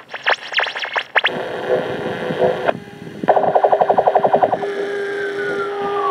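Audio played from a portable cassette player and warped by hand: quick up-and-down pitch sweeps that break off abruptly just over a second in, then tape hiss under steady tones. About three seconds in comes a rapid stutter of about a dozen pulses a second, followed by a held tone with a falling pitch glide near the end.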